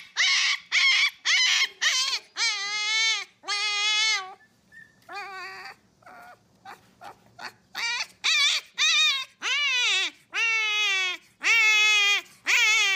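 Siberian husky puppy howling in a string of yelps and drawn-out cries, each call rising then falling in pitch. After a quieter stretch of short yelps in the middle, the cries grow longer and louder.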